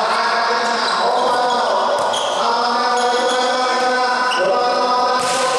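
Volleyball rally in a sports hall: many voices shouting and cheering together, with sharp hits of the ball about two seconds in and again near the end.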